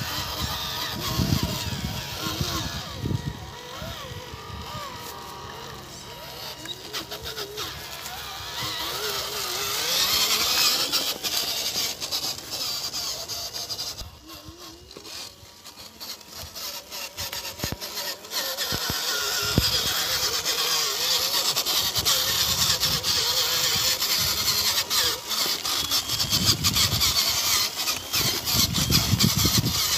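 Homemade PVC RC dump truck driving over a dry dirt track and grass: its motor runs under load while dry stalks and twigs crackle under the tyres. It fades briefly about halfway through, then is close and loud again.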